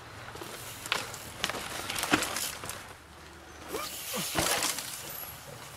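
Mountain bike rolling over rocks on a dirt trail: a few sharp knocks and clatters as the wheels drop over rock ledges.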